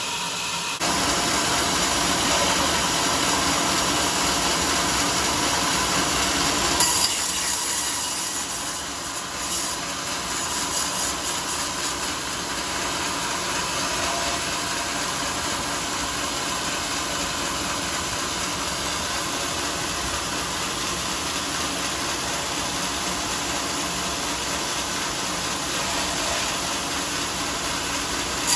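Sawmill saw cutting through a teak log, a steady loud sawing noise with a machine running under it. It gets louder about a second in and changes character around seven seconds in.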